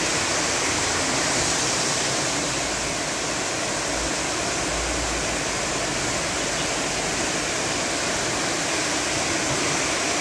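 Steady, even rushing hiss of a thunderstorm downpour and water over a flooded street.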